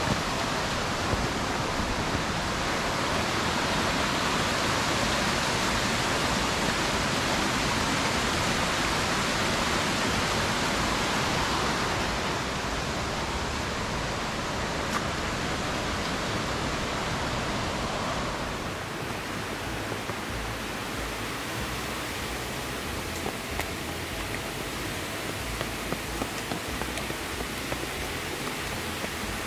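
Rocky mountain creek running over stones: a steady rush of flowing water, which drops and softens about two-thirds of the way through.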